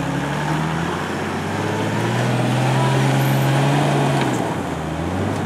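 Toyota Land Cruiser 100-series engine working under load on a steep off-road climb. The revs rise at the start, hold steady and loudest for a couple of seconds, then drop back near the end.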